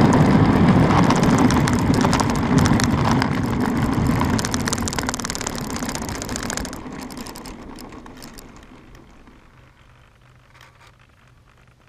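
Penguin FPV model airplane's landing rollout on asphalt: a crackling, rattling noise of the airframe running over the rough surface, dying away over several seconds as the plane slows to a stop.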